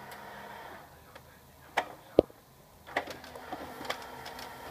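HP Color LaserJet Pro MFP M176n laser printer running a steady hum that stops about a second in, as it finishes printing. A few sharp clicks follow, the loudest about two seconds in, then a run of small ticks near the end.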